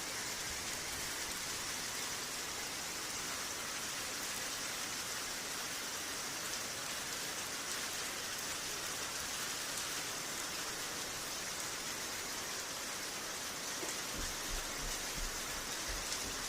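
Heavy hail falling, a dense, steady patter of hailstones striking surfaces, with a few low thuds near the end.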